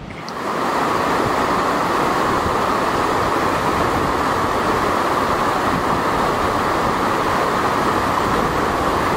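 Rushing mountain creek: whitewater tumbling over rocks in a steady, loud rush of water that comes in about half a second in.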